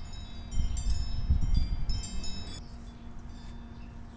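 Chimes tinkling: flurries of high, bell-like ringing notes that stop about two and a half seconds in, over a low rumble.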